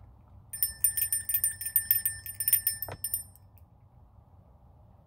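Small handbell rung rapidly for nearly three seconds, a quick run of strokes with a bright ringing tone, then stopping.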